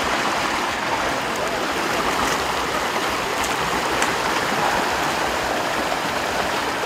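River water flowing steadily, an even wash of water noise.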